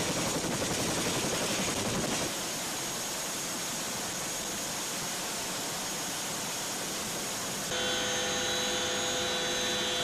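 CH-47 Chinook tandem-rotor helicopter running on the ground: a dense, rapidly pulsing rush of rotor and turbine noise. The noise steps down slightly about two seconds in. Near the end it gives way to a steady whine of several tones, as heard inside the cabin.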